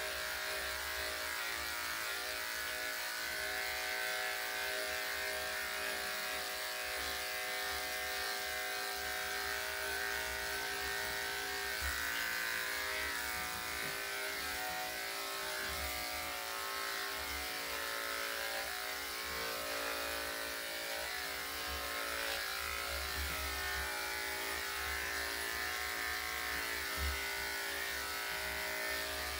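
Electric dog grooming clippers fitted with a #5 blade running steadily, a constant motor hum, as they trim a Yorkshire Terrier's body coat.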